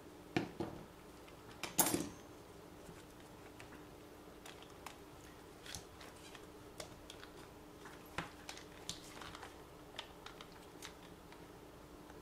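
Small clicks and knocks of plastic parts and small tools being handled while an RC car is taken apart, with two sharper clacks near the start and lighter ticks after, over a faint steady hum.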